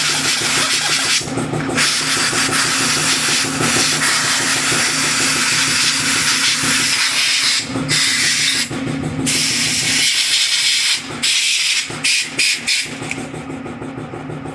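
Aerosol carburetor cleaner spraying in long hissing blasts onto lawn mower carburetor parts, broken by a few short pauses and thinning out near the end, over a steady low hum.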